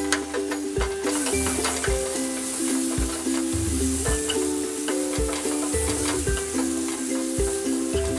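Scrambled egg and masala sizzling in a non-stick kadai while a wooden spatula stirs and scrapes it, with the sizzle growing about a second in. Background music with held, stepping notes plays over it.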